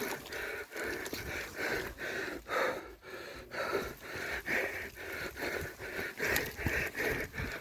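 Mountain-bike racer breathing hard in quick, rhythmic pants, about two to three breaths a second, with scattered clicks and knocks mixed in.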